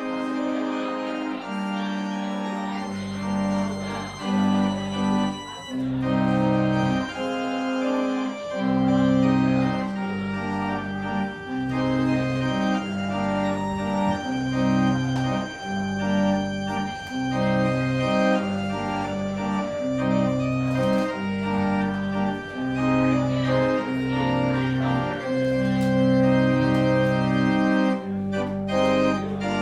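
Church organ playing a postlude: sustained chords, with deep pedal bass notes coming in about three seconds in and moving roughly once a second.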